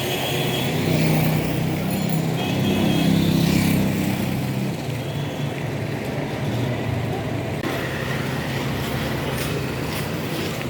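A motor vehicle's engine running steadily with road-traffic noise, strongest from about a second in until a little before the middle.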